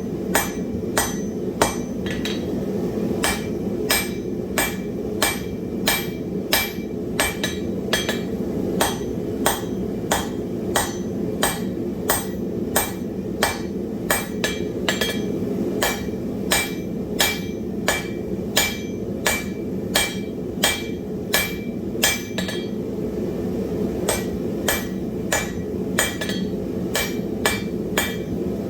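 Blacksmith's hammer striking hot wrought iron on an anvil in a steady rhythm of about one and a half blows a second, each blow ringing, with a brief pause near the end. A steady low roar runs underneath.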